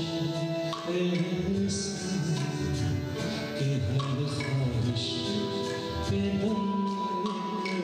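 Live ghazal ensemble playing: tabla strokes over held keyboard notes and acoustic guitar.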